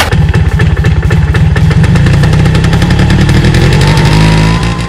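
An engine running loudly with rapid, even firing pulses and heavy low end, its pitch rising slightly near the end.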